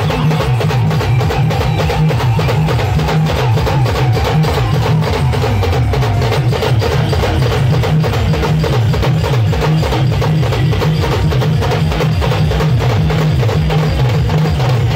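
A live drum band playing a fast, dense rhythm on hand-carried drums, over heavy bass and a melody line.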